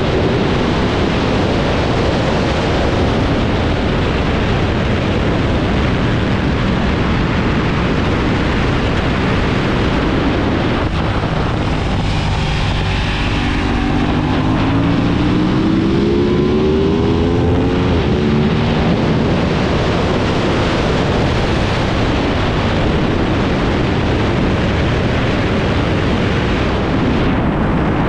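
Aprilia RS660's parallel-twin engine on track, mostly buried under heavy wind noise on the microphone at speed. About halfway through, after the bike slows for a tight corner, the engine note climbs through the gears as it accelerates out.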